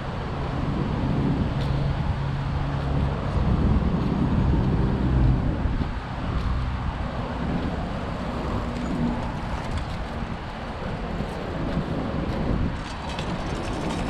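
Road traffic on a city avenue: a steady wash of passing cars, with one vehicle's engine hum growing louder from about a second in and fading after about five seconds.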